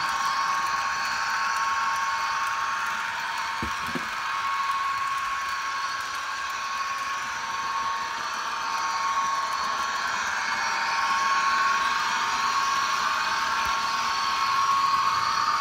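Märklin HO model train running on the layout: a Class 218 diesel locomotive pulling loaded freight cars, with a steady motor whine and the rolling hiss of wheels on metal track. There is a brief double knock about four seconds in.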